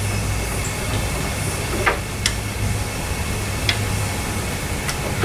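Power drill running steadily under load while boring out a cross-threaded lug nut and wheel stud, with a few sharp metallic clicks.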